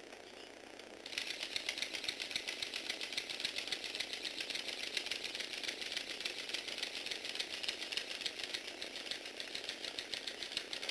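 Motorised Lego Technic V8 engine model running: plastic pistons and crankshaft turned by a small electric motor make a rapid, even clicking rattle that starts about a second in.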